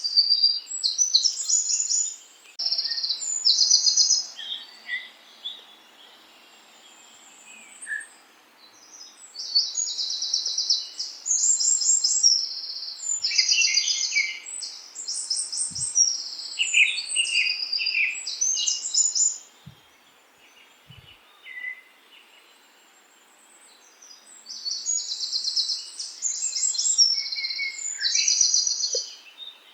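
Songbirds singing in the countryside: runs of quick, repeated high chirps and trills in bursts of a few seconds, with a couple of lulls in between.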